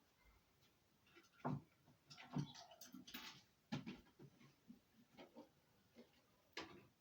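Faint, irregular knocks and clicks, a few louder thumps among them, against a quiet room.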